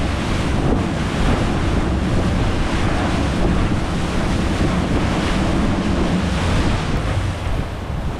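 Strong wind buffeting the microphone over the rush of sea water around a fishing boat offshore, a loud, even noise.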